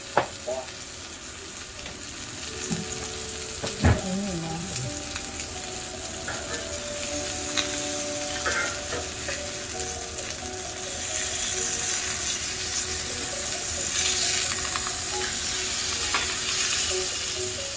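Food slices searing in fat on the hot griddle plate of a Daewoo SK1 electric smokeless grill, a steady sizzle that grows louder toward the end. Sharp clinks of a metal spatula against the plate, the loudest about four seconds in.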